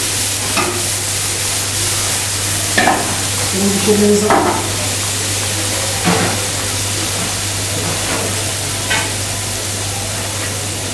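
Chopped onion sizzling in oil in a steel frying pan over a gas burner, with a handful of short knocks as the pan is shifted on the metal grate.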